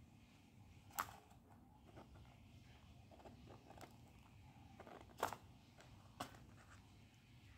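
Faint handling sounds of small items or packaging over near silence, with three sharp clicks: one about a second in and two more a second apart past the middle.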